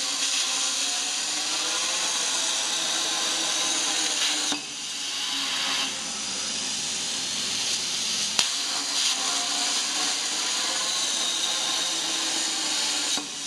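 Plasma cutting torch of a CNC pipe-cutting machine cutting through a steel pipe: a loud, steady hissing rush that starts suddenly. It dips about four and a half seconds in, has a sharp click around eight seconds, and cuts off suddenly near the end.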